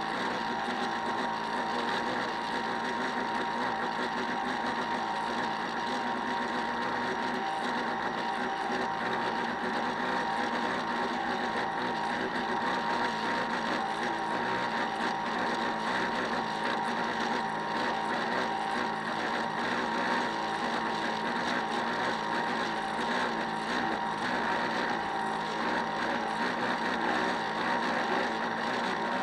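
Small electric motor of a model boat running with a steady whine.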